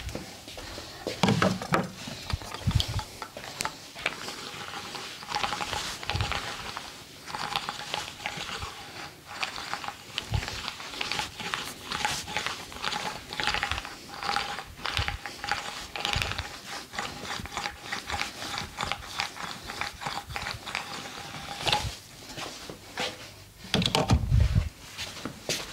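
Massage sounds: hands rubbing, pressing and tapping on skin, heard as a dense, irregular run of small clicks and rubs, with a few heavier thumps near the end.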